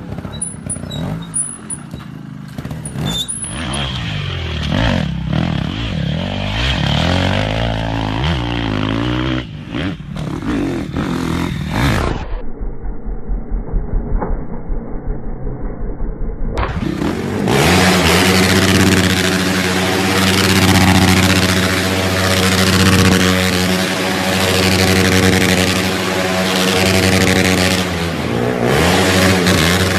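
Off-road motorcycle and quad bike engines revving and running through a string of short clips, the sound changing abruptly at each cut. In the last part a quad bike's engine runs steadily and loudly.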